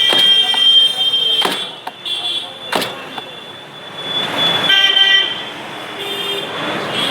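Vehicle horns honking in street traffic: a long horn note at the start and another short honk about five seconds in, with a few sharp knocks in between.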